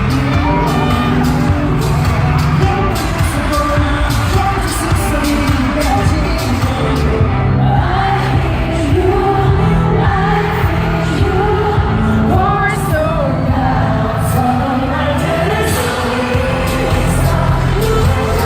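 Live K-pop concert music: male vocals sung over a loud backing track with heavy bass and a steady beat.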